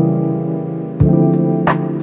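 Background music: sustained chords, with a new chord struck about a second in and light percussive hits after it.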